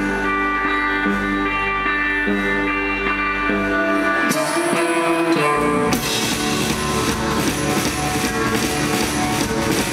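Live rock band performing: electric guitar and bass guitar holding sustained notes, thinning out briefly, then the full band with drums coming in about six seconds in.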